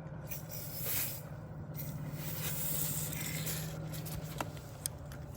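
A plastic spray bottle being opened and fitted onto a pressure washer's water inlet: soft hissing rustles and a few light clicks over a steady low hum.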